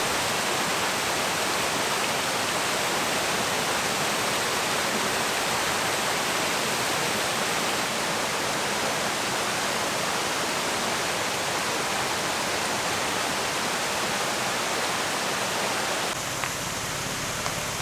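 Steady rushing of a waterfall, an even hiss of falling water with no let-up, a little quieter near the end.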